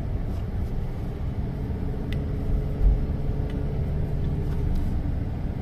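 Car driving: a steady low rumble of engine and road noise, with a heavier low thump about three seconds in.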